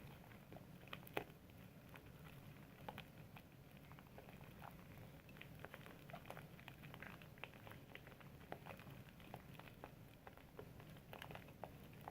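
Faint, irregular wet crackles and small clicks of soap being lathered, several a second, over a low steady background hum.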